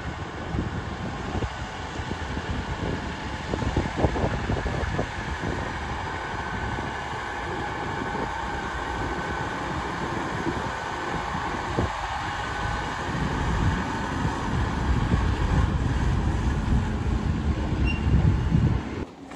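Farm tractor running as it hauls a twin-axle silage trailer past, a steady engine rumble with a faint whine above it and a few knocks. It grows louder over the last few seconds as the tractor comes close.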